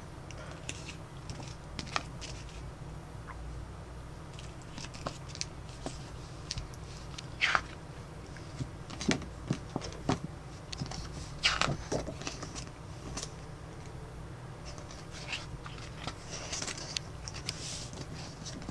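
Hands handling a large softcover photobook: paper rustling, sliding and pages being opened and turned, with scattered light taps and scrapes, two louder paper strokes about seven and eleven seconds in. A steady low hum runs underneath.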